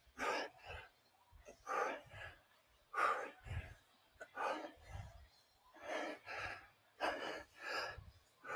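Two people breathing hard through a set of kettlebell goblet squats: short, forceful huffs and gasps about once or twice a second, with a few dull low thuds among them.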